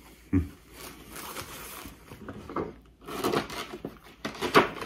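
Paper and stitching materials being handled: rustling and crinkling, with a soft thump just after the start and a run of sharper knocks and rustles in the second half.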